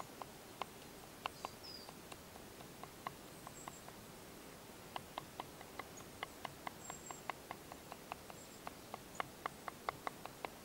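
Knife chopping vegetables on a wooden board: a series of sharp wooden knocks, scattered at first, then a quicker run of about four a second from about five seconds in. Faint high bird chirps sound now and then.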